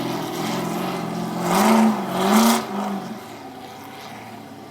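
Ultra4 rock-racing buggy's engine running, then revved hard in two or three quick blips as it works over the rocks; the sound falls away after about three seconds.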